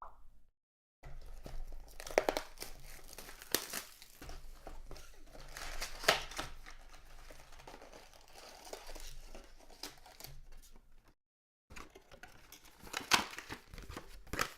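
Trading card packs being torn open and their wrappers crinkled, with cards clicking and sliding as they are handled. The sound drops out to dead silence twice for about half a second.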